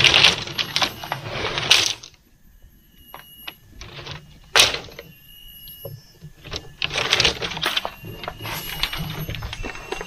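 Bamboo slats being handled: scraping and rustling in bursts, with one sharp knock about four and a half seconds in.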